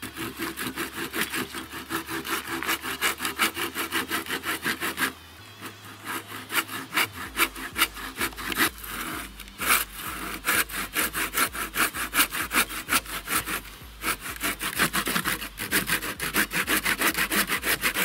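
Hand saw cutting through a log in quick back-and-forth strokes. The sawing pauses about five seconds in and resumes about two seconds later.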